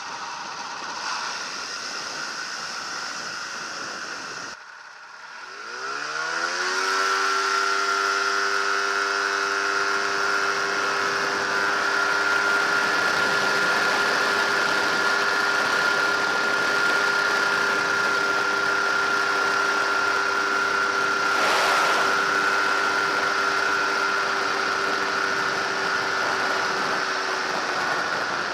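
Microlight trike's engine and pusher propeller running at low power, then throttled up about five seconds in, pitch climbing over a couple of seconds to a steady full-power run for the takeoff roll and climb-out.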